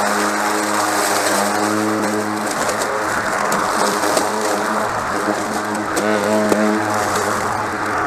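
Mowrator S1 battery-powered remote-control mower running over rough ground: a steady hum from its electric motors that drops away and returns, shifting slightly in pitch, over a continuous rushing noise from the spinning deck.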